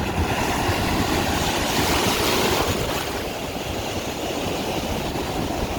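Ocean surf washing onto the shore, swelling about two seconds in, with wind buffeting the microphone as a fluttering low rumble.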